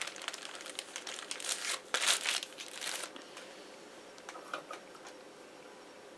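A plastic bag holding a lump of clay crinkling as it is handled and set down, loudest about two seconds in. The crinkling stops about three seconds in, followed by a few light clicks.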